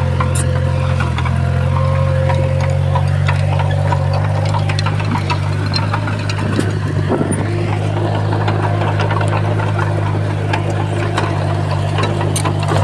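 Heavy diesel engine of earthmoving equipment running steadily with a constant low drone, with scattered metallic clanks and clicks throughout.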